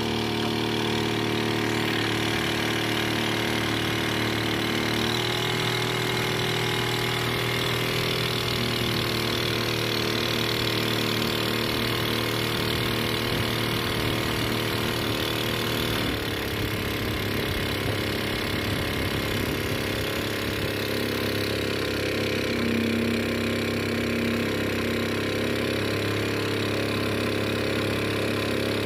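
Small stationary engine on a plastic-drum boat running steadily under way, driving a long-tail propeller. Its pitch shifts slightly about five seconds in and again about halfway through.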